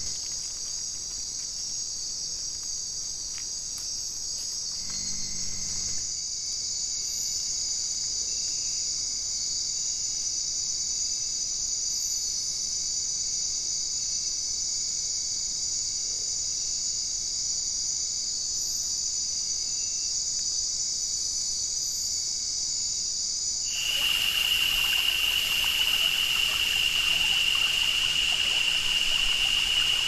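Steady high-pitched chorus of night insects in tropical rainforest, such as crickets. About four-fifths of the way in it gives way to shallow stream water trickling, with a steady high insect drone over it.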